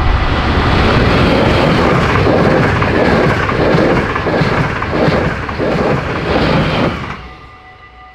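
Passenger train hauled by an electric locomotive passing close by at speed: a loud rushing rumble with wheel clatter that stops abruptly about seven seconds in as the last coach goes by. The level crossing's warning bells ring steadily under it and are left ringing on their own.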